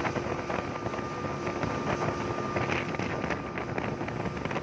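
Small river speedboat under way: its engine runs with a steady hum, mixed with wind buffeting the microphone.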